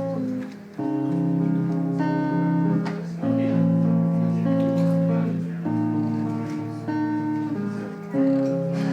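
Acoustic guitar strumming the intro of a song, a new chord about every two and a half seconds, each left to ring.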